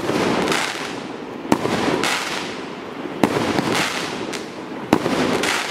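A 1.2-inch, 138-shot consumer fireworks cake firing. There are four sharp shot reports about a second and a half apart, each followed by a hissing rush as the tailed shot rises and breaks.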